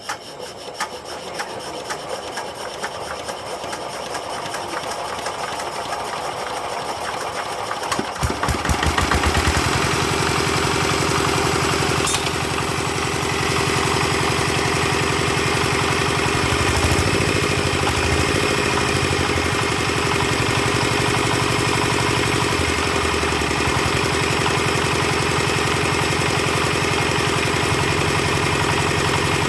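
Engine of a concrete-block press being hand-cranked. The cranking rhythm grows louder for about eight seconds until the engine catches and settles into steady running.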